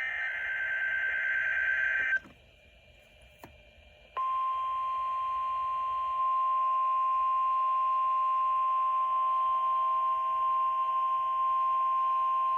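NOAA Weather Radio emergency alert. A buzzy, screechy digital data burst (the SAME header) cuts off about two seconds in. After a short silence and a click, the steady 1050 Hz warning alarm tone begins about four seconds in and holds on, the tone that marks a warning-level alert.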